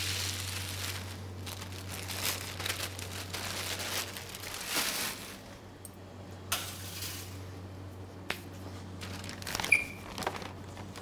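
Baking paper crinkling as it is peeled off a sheet of coconut dacquoise sponge, followed by scattered light clicks and knocks of kitchen handling over a steady low hum. A short sharp clink near the end is the loudest sound.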